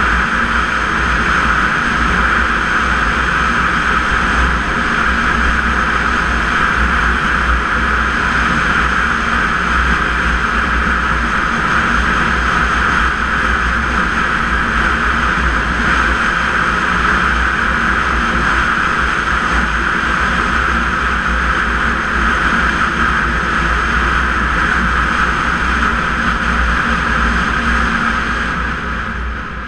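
Snowmobile engine running steadily at speed, easing off near the end.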